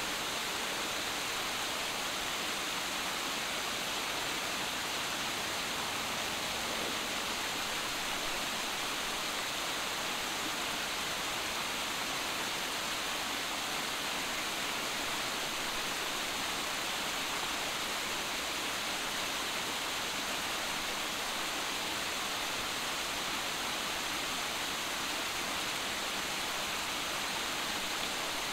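Small waterfall cascading over rocks: a steady, even hiss of falling and splashing water with no breaks.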